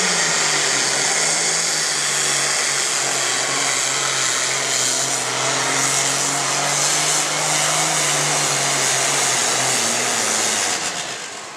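Modified turbocharged diesel engine of a John Deere super stock pulling tractor running at full throttle under load as it drags the weight sled, with a steady low engine note and a loud turbo hiss over it. Near the end the pitch sags and the sound falls off as the pull ends.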